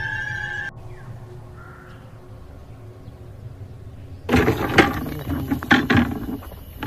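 Eerie background music with held tones cuts off abruptly under a second in, leaving a quiet, low hum. About four seconds in comes a sudden burst of knocks and clatter, which stays loud for about two seconds.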